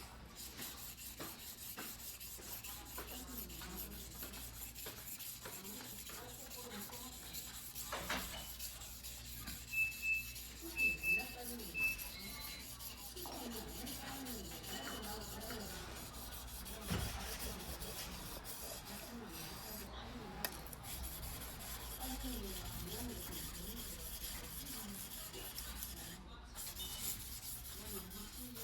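A Choyo White #2 steel yanagiba being hand-sharpened on a whetstone: repeated rubbing strokes of the blade across the stone. Four short high beeps about a third of the way in are the loudest sounds.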